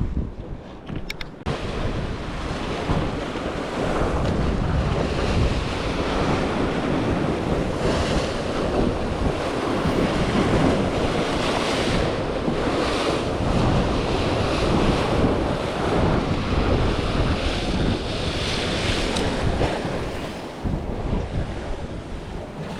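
Wind buffeting the microphone over the wash of sea waves, swelling and easing in gusts.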